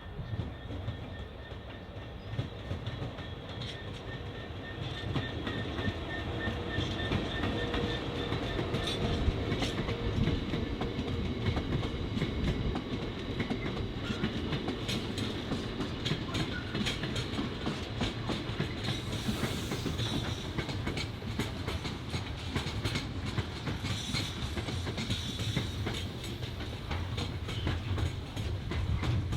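Train wagons rolling past on the rails, their wheels clacking over rail joints in a dense, irregular run of clicks over a steady rumble, with faint steady high tones from the wheels.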